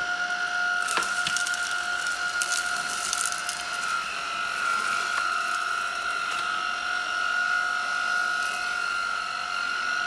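Tineco A11 Master cordless stick vacuum running with a steady whine while it sucks up grass and leaves from a wood floor. The debris crackles and ticks through the floor head during the first few seconds.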